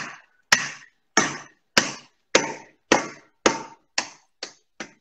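A metal saucepan pounded down again and again onto a bar of baking chocolate and almonds to crush them: about ten hard knocks, a little under two a second, each with a short ring. In the last second the knocks come faster and softer.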